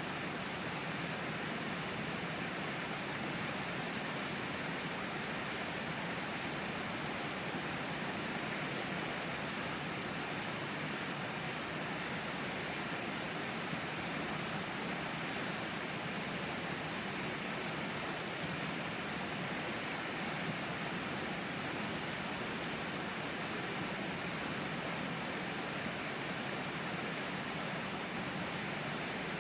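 Steady rushing of the Tama River flowing, an even water noise, with a thin steady high-pitched tone running through it.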